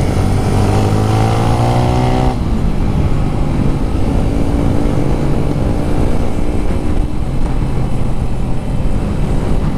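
Yamaha Sniper 155's single-cylinder four-stroke engine revving up under hard acceleration out of a corner. The pitch climbs for about two seconds, breaks off at a shift a little over two seconds in, then runs steadier and lower under heavy wind rush on the bike-mounted microphone.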